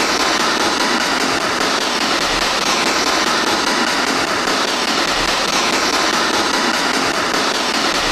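Ghost-box (spirit box) radio sweep played through a small koala-shaped speaker: a loud, steady hiss of static.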